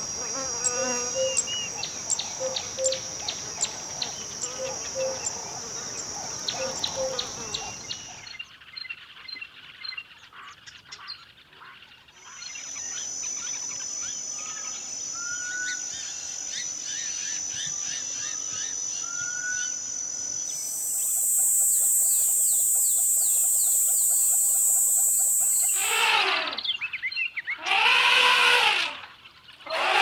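Grassland ambience of steady, high insect buzzing with many short bird chirps, changing abruptly a few times. Near the end, elephants trumpet loudly twice, and a third call begins.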